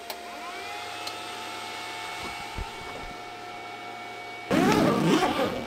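Filament dryers running in a fabric 3D-printer enclosure: a steady fan hum and whine with a few thin tones, a deeper hum joining about half a second in. Near the end, a loud scraping rustle as the enclosure's fabric front is closed.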